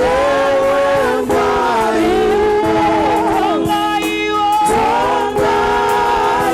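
Gospel choir singing a Shona song in several voice parts, with long held notes.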